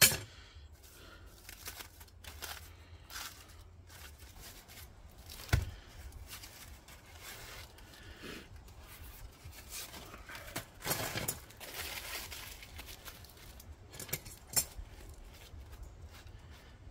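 Aluminium foil crinkling and tearing as it is peeled off a foil-wrapped burrito and crumpled up, in short irregular crackles. Two sharp knocks stand out, one at the start and one about five seconds in.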